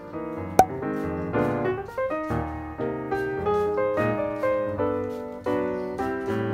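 Background piano music, a gentle run of single notes and chords. A sharp click sounds about half a second in.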